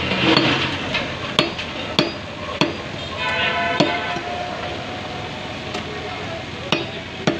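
Heavy cleaver chopping beef on a thick wooden chopping block: sharp thuds, about seven chops at uneven intervals, several close together in the first three seconds and two more near the end.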